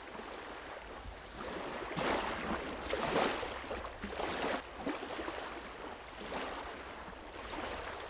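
Small waves washing onto a lakeshore, the surf noise swelling and fading several times.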